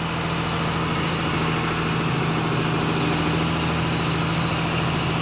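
Truck engine running at a steady, even drone while the truck is driving, heard from inside the cab.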